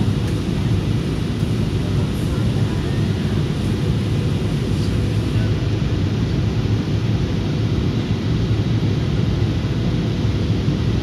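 Steady cabin noise of a jet airliner in flight: its turbofan engines and the air rushing past the fuselage, heard from inside the cabin as an even, deep rumble.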